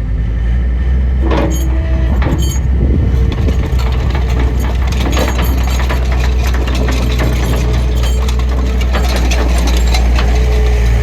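John Deere 325 skid steer's four-cylinder turbo diesel engine running steadily, with sharp metallic clanks and rattles over it, a few ringing briefly about a second to two and a half seconds in.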